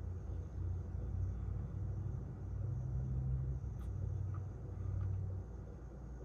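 Low, uneven rumble of a GE gas oven's bake burner flame burning after its igniter lit the gas, swelling and easing, with a single light tick about four seconds in.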